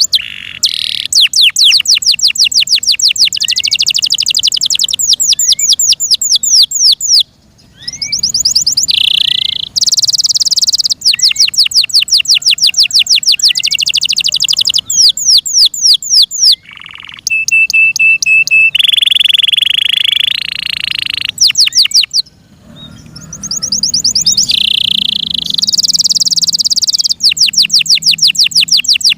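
An F1 Yorkshire canary singing a loud, long song made of fast trills of rapidly repeated high notes, varied with a held whistle-like note about two-thirds of the way in. The song breaks off briefly twice.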